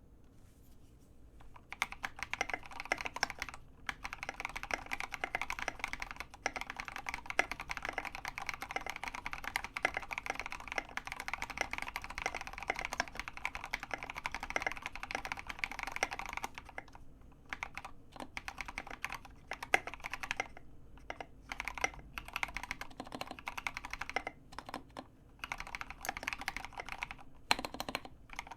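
Custom EO87 mechanical keyboard with lubed Gateron Yellow linear switches on 70 g springs, an acrylic plate and SA-profile keycaps, being typed on. Fast, continuous typing begins after a brief pause, turns slower and sparser with short breaks about halfway through, then picks up again near the end.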